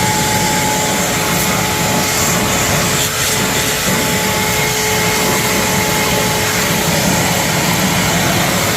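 Hoover WindTunnel upright vacuum cleaner running steadily: a loud, even rush of motor and airflow with a constant whine.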